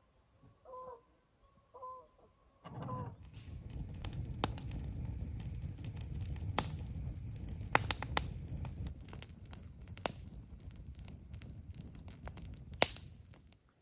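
A bird's short clucking calls, about one a second. From about three seconds in they give way to a long stretch of rustling and crackling with a low rumble and several sharp snaps, which stops just before the end.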